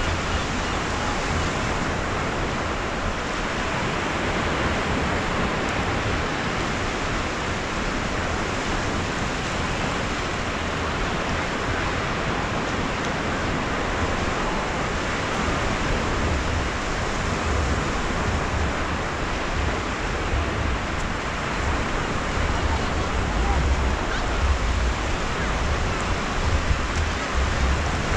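Sea surf washing onto a sandy beach, a steady hiss with no breaks. Wind buffets the microphone with low rumbling gusts that grow stronger in the second half.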